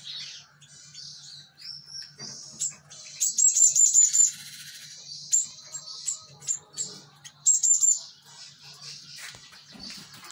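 Cinereous tit calling: high, thin chirps and several quick rattling runs of repeated notes, the loudest run about three to four seconds in and another near eight seconds.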